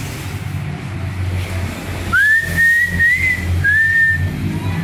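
A person whistling two held notes: the first slides up into a long note of about a second and a half, then a short break and a second, shorter note at about the same pitch.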